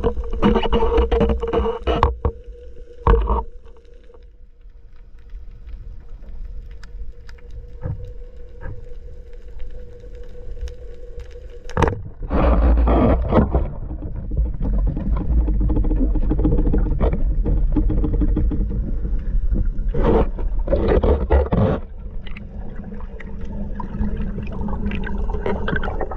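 Underwater sound through a speargun-mounted camera's housing: water rushing and bubbling in heavy surges, strongest about twelve seconds in and again near twenty seconds. A steady hum runs under it for the first half and stops.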